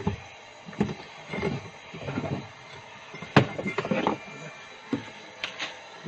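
Irregular clicks and knocks of plastic and metal parts being handled and pulled inside the base of a twin-tub washing machine, near its motor and belt pulley, with the loudest sharp knock about three and a half seconds in.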